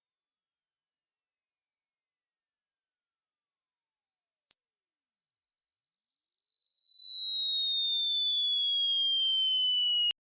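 A pure sine test tone from a hearing-test frequency sweep, sliding steadily down in pitch from very high to high, then cutting off abruptly near the end.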